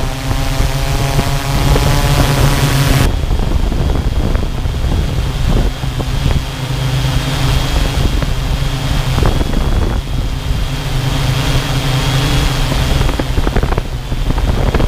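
Multirotor drone's motors and propellers hovering with a steady hum and a thin high whine, over wind rumble on the microphone. A loud hiss cuts off about three seconds in.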